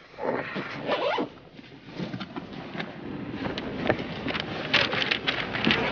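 Fabric and backpack rustling and scraping close to the handheld microphone as a person gets out of a car with a backpack, with scattered clicks and clatters of handling.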